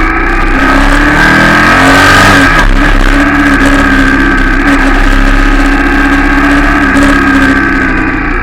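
Royal Enfield Shotgun 650's 648 cc parallel-twin engine pulling under acceleration, its revs climbing over the first couple of seconds, then running steadily at cruising speed.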